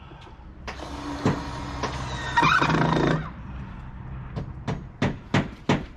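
Cordless drill running for about two and a half seconds, driving a screw into the camper's wooden frame. It is followed by a run of sharp knocks, about three a second, near the end.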